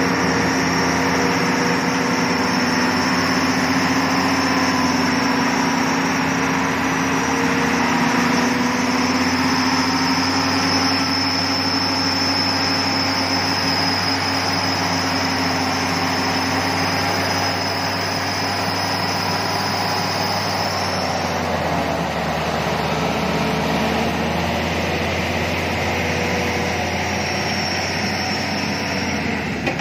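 Heavily loaded logging truck's engine pulling hard at low speed through mud: a steady drone with a high whine above it. The engine note drops about two-thirds of the way in.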